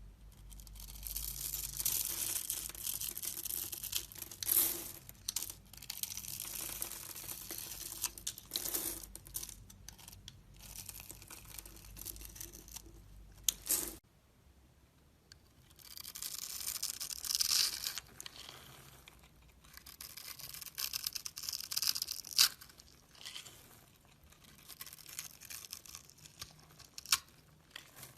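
Blade carving and shaving a bar of soap: stretches of crisp, scratchy scraping with short pauses and a few sharper cracks.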